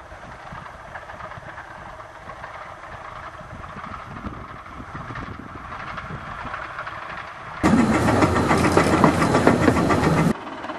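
15-inch-gauge steam locomotive, built by Guest in 1964, running with a train: faint and distant at first. About eight seconds in it is heard loud and close from the footplate for nearly three seconds, rapid exhaust beats over running noise, and it cuts off abruptly.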